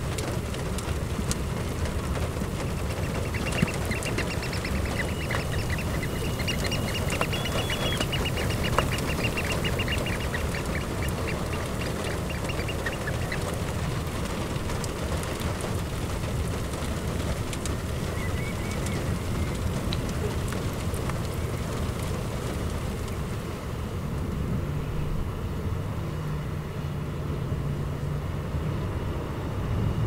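Eurasian oystercatchers piping: a fast, even run of shrill repeated notes starting a few seconds in and lasting about eight seconds, with one short call later. Under it is a steady low rumble.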